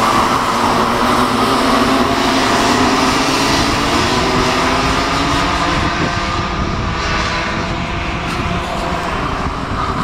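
A pack of Rotax Mini Max 125cc two-stroke racing karts running together at race pace. Several engines at different pitches overlap, rising and falling as the karts brake and accelerate.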